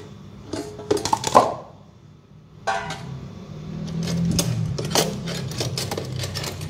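Clinks and knocks of kitchenware being handled while cooking ingredients are prepared: a few sharp taps in the first second and a half, then a quick run of them in the second half.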